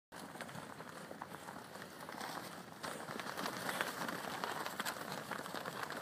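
Footsteps crunching on packed snow: a steady run of crackles over a hiss, a little louder from about three seconds in.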